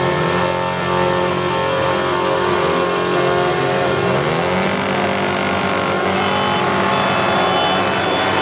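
Several pit bike engines running and revving together, their pitches overlapping and rising and falling.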